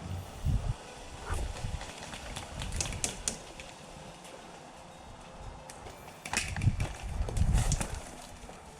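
Irregular low thumps and rustling of a player moving with a body-worn camera, with a few sharp clicks now and then.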